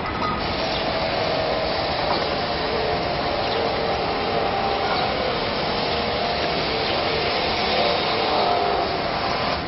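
Construction-site machinery running with a steady whirring drone.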